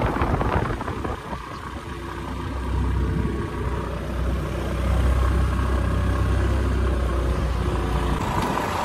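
Small two-wheeler engine running as it rides along a road, with wind rumbling on the microphone. The rumble grows louder about halfway through.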